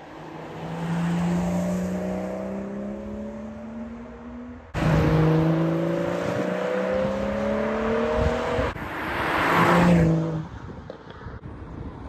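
BMW M240i's B58 turbocharged 3.0-litre straight-six exhaust, with both resonators removed, accelerating past, its note rising steadily as the revs climb. It jumps suddenly louder twice, about a third and about two-thirds of the way in, peaks near the end, then falls away.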